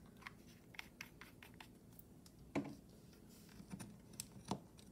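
Faint small clicks and taps of a ring being handled while it is tested for sterling silver, with two louder knocks about two and a half seconds in and near the end.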